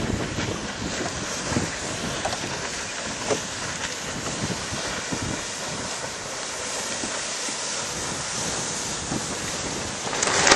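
Wind buffeting the microphone over a steady rush of water and waves, with scattered low bumps and a louder burst just before the end.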